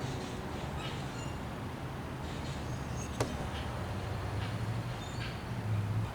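Small birds chirping here and there over a steady low hum, with one sharp click about three seconds in.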